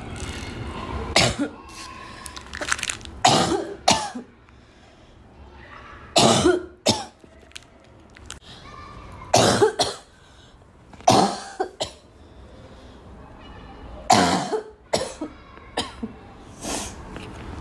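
A girl coughing over and over: single coughs and short runs of two or three, every couple of seconds.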